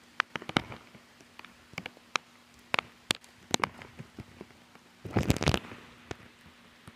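Bare feet squelching in wet mud and puddles: a scatter of sharp, wet clicks and slaps, with a louder burst of squelching about five seconds in.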